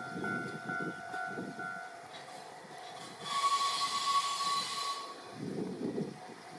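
Trains running past on the rails with a low rumble. A pulsing two-tone ringing, like a level-crossing bell, stops about two seconds in. Then a train horn sounds for about two seconds with a hissy blast.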